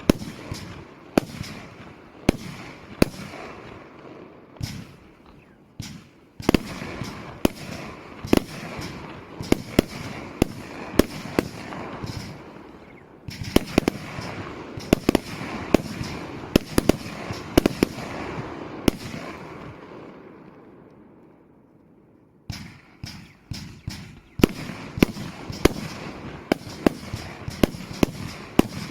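Argento Pyroshow 1000 'Syringa' firework compound cake firing: a rapid series of sharp shots and bursts with crackling between them. It dies away about two-thirds through, then a second section starts firing shots again.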